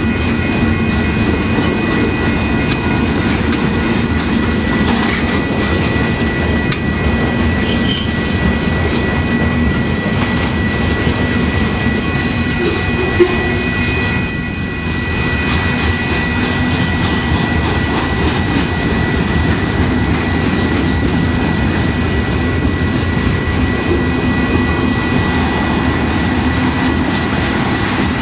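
Freight cars of a long manifest freight train rolling past: a steady rumble and clatter of steel wheels on the rails, with a steady high whine over it and one sharp click about 13 seconds in.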